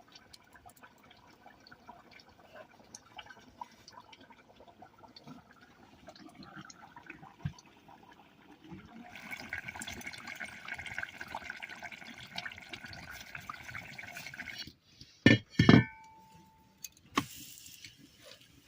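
Cooking utensils being handled as the finished chicken curry comes off the fire: light clinks and scrapes, then a steady hiss for about five seconds. Near the end come two loud metal clanks, one ringing briefly.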